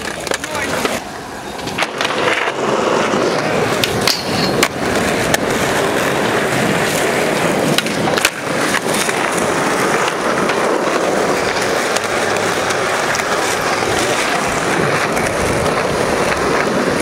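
Skateboard wheels rolling over rough asphalt in a steady rumble, broken now and then by sharp clacks of the tail popping and the board landing, the loudest about eight seconds in as a flip trick comes down.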